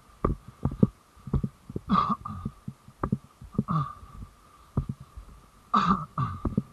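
Footsteps thudding through a body-worn camera as the wearer walks, about two to three dull thumps a second, with a few brief rustles and a faint steady high whine underneath.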